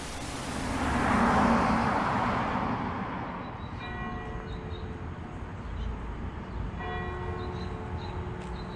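A church bell tolling, one stroke about every three seconds from about four seconds in, each ringing out with several overtones. Under it runs a low steady rumble of city traffic, and a rush of passing noise swells and fades in the first few seconds.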